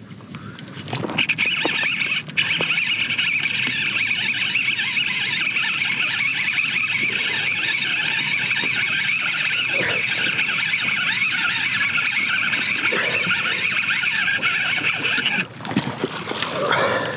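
Baitcasting reel whining steadily as line is cranked in hard, with a brief pause about two seconds in; it cuts off sharply shortly before the end, followed by a few seconds of rustling and knocks.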